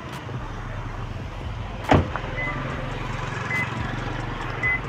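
A vehicle engine idling with a steady low hum. There is a single sharp knock about two seconds in, and three short high chirps come later.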